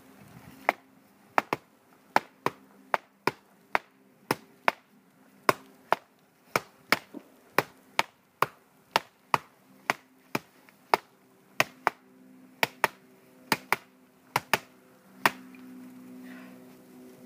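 Repeated chopping blows into a piece of tree bark, sharp strikes at a steady pace of about two a second, cutting it into pieces.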